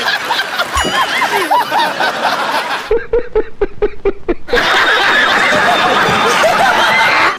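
Edited run of laughter clips: a studio crowd laughing, then about three seconds in a single man's quick, rhythmic 'ha-ha-ha' laugh, then a crowd laughing and clapping.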